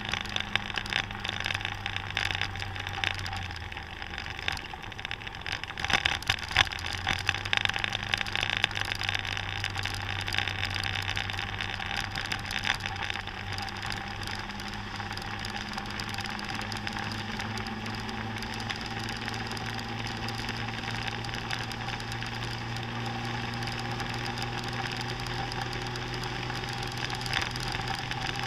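Motor scooter engine running at road speed, its note slowly rising over the second half as it speeds up, with gusty wind noise on the microphone.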